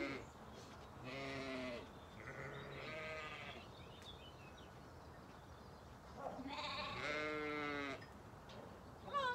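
Zwartbles sheep bleating: a few calls in the first three seconds, then a longer, louder bleat about six to eight seconds in.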